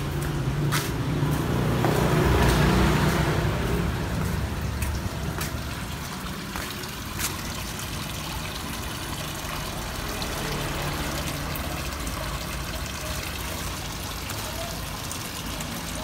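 Water trickling and splashing steadily into a large fish pond, as from a filter return. A louder low rumble fills the first few seconds.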